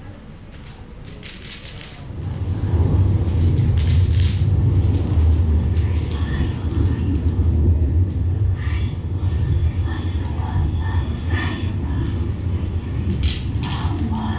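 A deep, steady low rumble swells in about two seconds in and keeps going, with scattered clicks, and faint higher tones and voice-like sounds over it from about six seconds.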